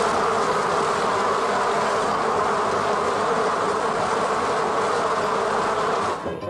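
Dense, steady buzzing like a swarm of insects that cuts off suddenly near the end.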